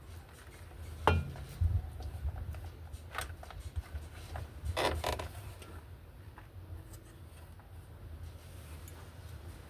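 Creaking and clicking of washing machine parts being handled, with a sharp knock about a second in and two short scrapes around three and five seconds in, over a low hum.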